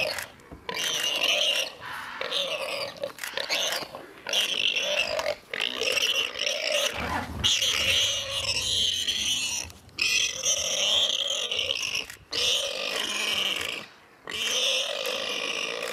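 Warthog squealing in distress over and over as a leopard attacks and pins it down, in loud, harsh bursts of one to two seconds with short breaks between them.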